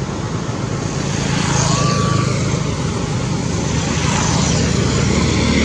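Steady low rumbling background noise that swells about a second in, with a brief thin whistle-like tone a little after that.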